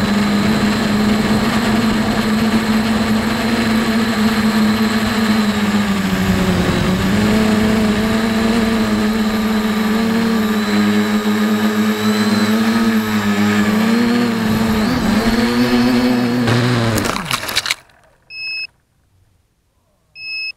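Electric motors and propellers of an FPV quadcopter whining steadily, heard close up from its onboard camera, the pitch wavering up and down as the throttle changes. Near the end the whine cuts off suddenly with a brief clatter as the quad comes down in the bracken, and then a short high beep sounds twice, about two seconds apart.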